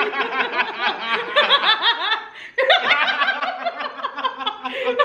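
A woman and a man laughing hard together, in quick repeated pulses, with a short break about two and a half seconds in before the laughter picks up again.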